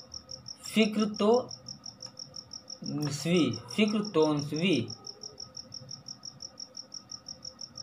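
A cricket chirping steadily in the background: a rapid, even train of short high-pitched chirps at one pitch, several a second.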